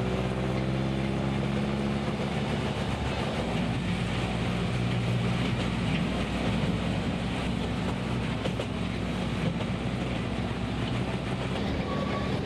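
Steady running noise of the Train d'Artouste, a narrow-gauge mountain tourist train, rolling along its track, heard from inside an open carriage, with a low hum under the rumble of the wheels on the rails.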